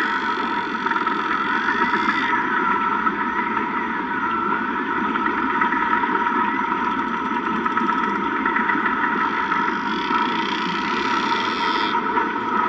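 Whale and dolphin song over a steady underwater rumble: long held tones, with a whistle that wavers up and down several times a couple of seconds in.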